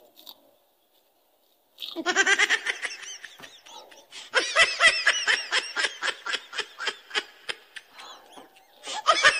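Laughter in quick runs of short pitched pulses, starting about two seconds in and going on with brief breaks.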